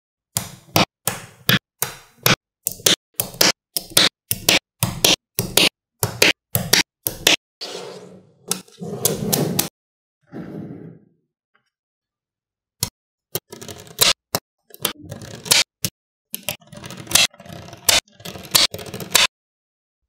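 Small magnetic balls snapping together with sharp clicks, one after another, with stretches of the balls rolling and scraping against each other. The clicks stop for about a second and a half a little past the middle, then resume.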